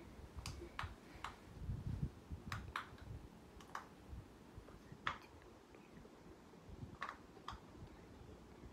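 Irregular sharp clicks, about nine of them spaced unevenly over several seconds, with a soft low rumble of handling noise about two seconds in.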